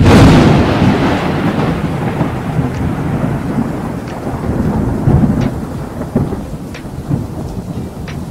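A sudden loud thunderclap that fades over a couple of seconds into long rolling thunder with rain hiss and a few faint ticks.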